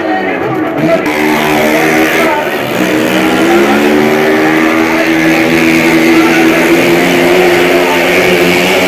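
Small motorcycle engine revving up as the bike sets off and climbs onto the wall of a wooden well-of-death drum, then running steadily at high revs as it circles.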